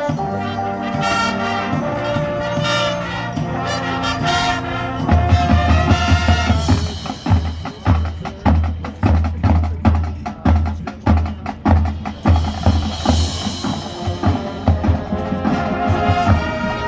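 Band music: held brass chords, then a percussion feature from about five seconds in, with heavy bass drum hits in a steady beat under busy percussion. Brass chords come back near the end.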